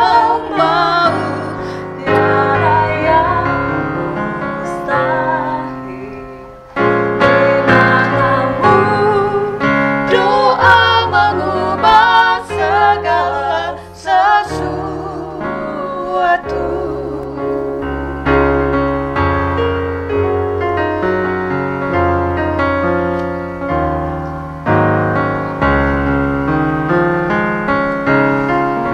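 Two women singing an Indonesian gospel song with electronic keyboard accompaniment. About halfway through, the voices drop out and the keyboard plays on alone, holding chords.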